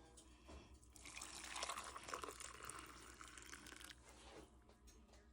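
Water running for about three seconds, starting about a second in and fading out, with a few small clicks.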